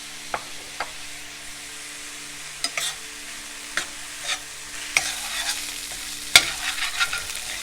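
Diced onion and green bell pepper sizzling in hot olive oil while being stirred, with a steady hiss and scattered clicks of a utensil scraping and knocking the pan; the sharpest knock comes about six and a half seconds in.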